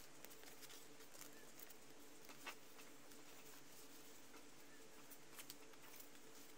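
Near silence: a faint steady hum with soft, scattered ticks and rustles of paper being handled, the clearest tick about two and a half seconds in and two close together near the end.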